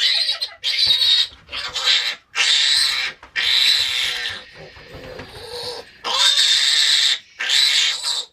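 A restrained baby piglet squealing loudly in a run of shrill screams, each up to about a second long.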